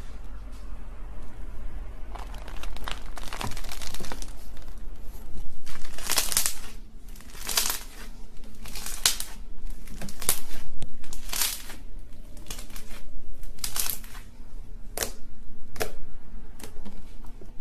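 Slime being squeezed and worked by hand, giving a string of crinkly, crackling squelches about once a second.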